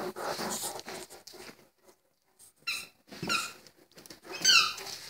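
Great Dane puppy mouthing a squeaky dog toy: first snuffling and rustling, then three short, high squeaks in the second half, the last one loudest.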